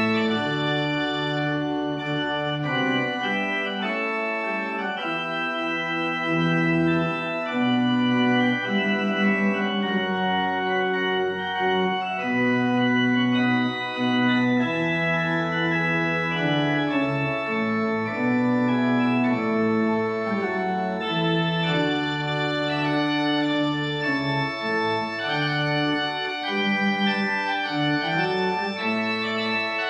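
Two-manual church organ played in sustained chords, with the bass notes changing every second or two.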